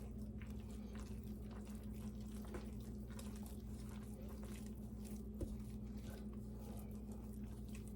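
Hands squishing and kneading a soft dough of flour, shortening and buttermilk in a bowl: faint wet squelches and small sticky clicks, over a steady low hum.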